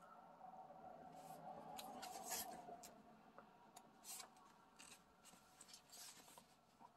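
Faint rustling of paper pages being turned in a coloring book: a few soft crinkles and swishes, the loudest about two seconds in.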